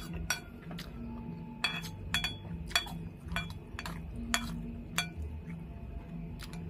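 Metal spoon clinking and scraping against a ceramic bowl as food is scooped up: about a dozen light, irregular clinks, some with a short ring.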